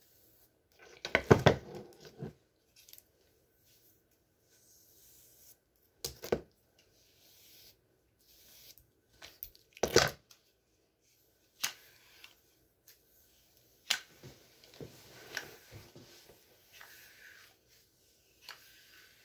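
A hair straightener being clamped and pulled through hair and handled close to the microphone: irregular clacks and knocks, the loudest cluster about a second in and another strong one around ten seconds in, with scratchy rustling between them.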